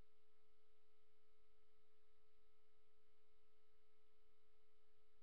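Near silence with a faint, steady electronic tone from a failed recording; the webcam captured no voice, though she is talking in the picture.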